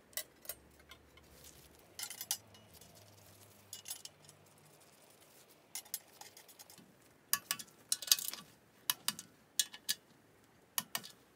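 Hand tools and metal engine parts clinking and clicking: scattered sharp metal-on-metal knocks, busiest in the second half.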